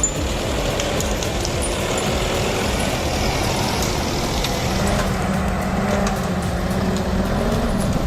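Heavy vehicle engine running steadily with a low rumble and a few light clicks; a droning tone joins in about five seconds in.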